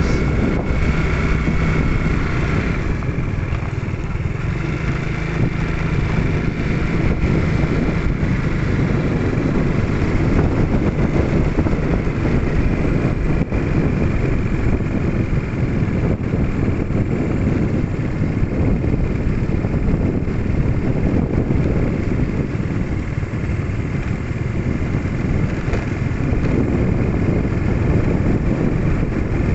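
Motorcycle engine running steadily while riding, with a continuous low rumble.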